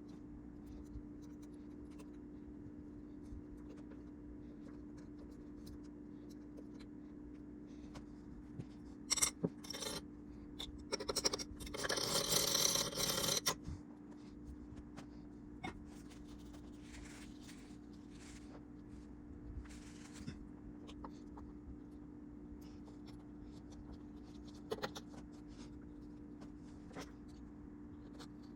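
Hand scraping and rubbing noises, loudest in a burst of a few seconds near the middle, with scattered fainter scrapes and clicks, over a steady low electrical hum.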